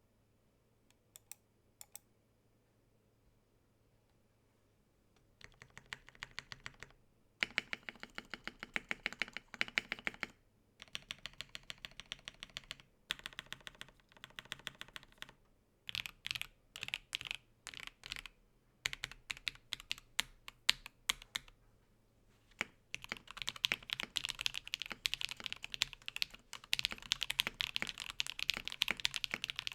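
Typing on a TKC Portico gasket-mounted 65% hot-swap mechanical keyboard with lubed and filmed Alpaca V2 linear switches on an FR4 plate, with felt case foam and a silicone dampener. A few single keystrokes, then bursts of typing from about five seconds in, becoming continuous fast typing from about two-thirds of the way through.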